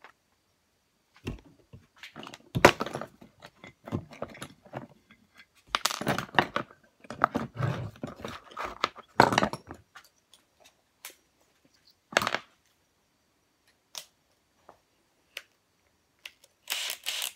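Metal screws clicking and rattling in a plastic screw case as they are picked out and handled, in irregular short bursts with gaps between them.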